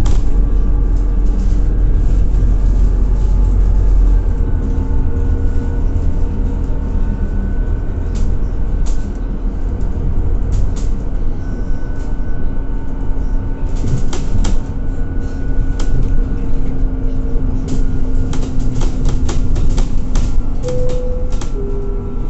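Inside a moving Scania Citywide 12LF CNG city bus: a steady low rumble from the gas engine and the road, heaviest in the first few seconds, with drivetrain tones that shift in pitch as the speed changes. Interior fittings rattle and click in short runs, most around the middle and towards the end.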